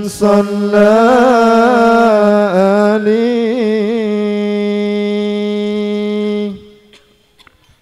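A man singing a solo sholawat line unaccompanied, one long melismatic vowel with wavering ornaments that settles into a steady held note and stops about six and a half seconds in. After it, only a few faint clicks.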